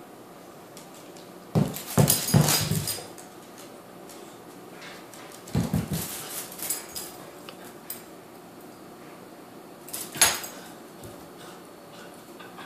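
A dog and a calico cat in a standoff at a cat tree make three short, loud bursts of animal noise: one about two seconds in, one around six seconds, and a sharp one near ten seconds.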